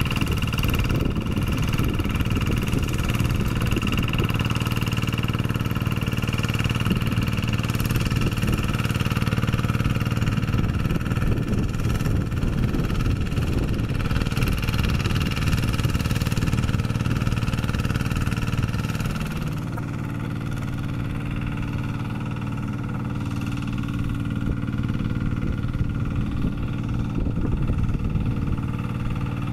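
Kubota RD110Di-2T single-cylinder diesel engine of a two-wheel hand tractor running steadily while it drives a rotary tiller through paddy mud. About two-thirds of the way through, the sound becomes a little quieter and steadier.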